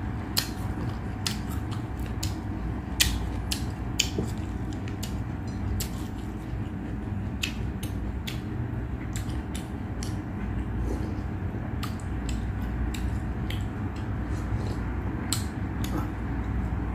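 Eating sounds close to the microphone: irregular sharp clicks and crunches of chewing, over a steady low hum.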